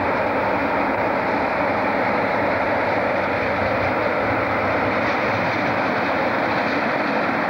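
Diesel locomotive running along the track, a steady engine and wheel noise with no distinct separate sounds.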